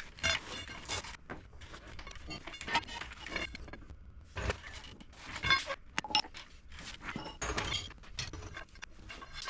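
Irregular metallic clanks, knocks and clinks of hand tools and metal parts being handled, with about a dozen sharp hits standing out.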